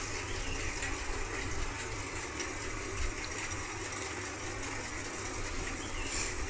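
An engine idling steadily, a low even rumble, with a short rustle near the end.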